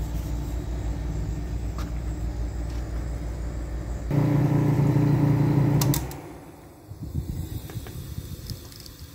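1975 Climatrol (Fedders) window air conditioner running with a steady hum; its Matsushita rotary compressor sits on worn-out mounts, which makes the unit noisy. About four seconds in, a louder, steadier hum takes over. A couple of clicks follow, and the unit stops about six seconds in, leaving a few faint knocks.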